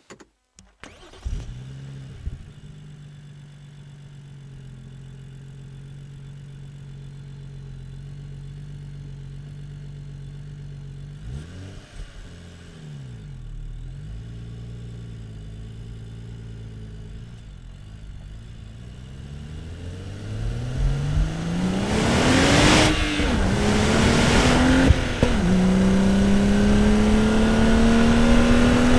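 BMW 435i's N55 turbocharged straight-six starting about a second in and idling steadily, with a brief blip of the throttle partway through. Near the end it pulls away, the engine note rising steadily and much louder, dropping twice as the manual gearbox is shifted up.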